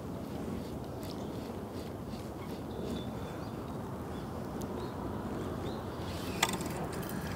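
Steady low outdoor background noise with faint scattered ticks, and one sharp click about six and a half seconds in.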